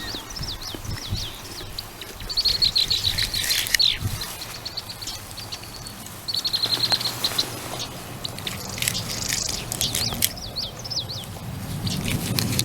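Small birds chirping and singing, with quick sweeping notes and two fast trills, one about two seconds in and one around six to seven seconds in.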